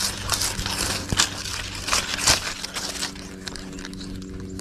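Irregular rustling and crackling close to the microphone, with a few louder scrapes and a faint steady low hum underneath.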